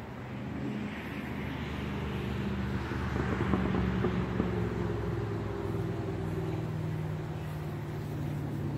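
A motor vehicle's engine running nearby, a low steady hum that grows louder over the first few seconds and then holds.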